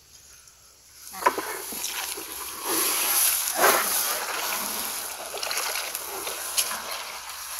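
Bare feet wading through shallow muddy water, sloshing and splashing with each step; it starts about a second in, with a few sharper splashes along the way.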